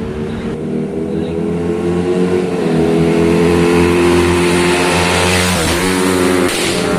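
Bajaj Pulsar 200NS single-cylinder engine, with a ported and polished cylinder head, pulling under acceleration, its note slowly rising and getting louder. About six seconds in, the pitch briefly drops and picks up again.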